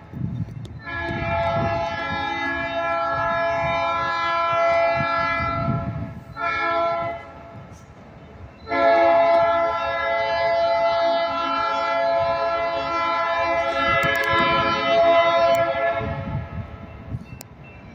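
Midcoast Railservice diesel locomotive's air horn sounding a long blast, a short blast, then another long blast, each a steady chord, over the low rumble of the passing train.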